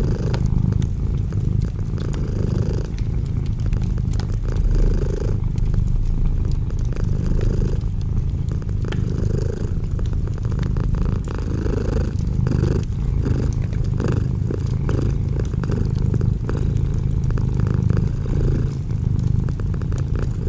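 Domestic cat purring loudly and steadily, close to the microphone, the purr swelling and easing about every one and a half to two seconds with each breath in and out.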